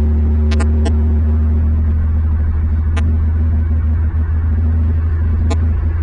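Loud, steady low hum with a few fainter steady tones above it. About five brief high ticks cut through it: three close together about half a second in, one about three seconds in, and one near the end.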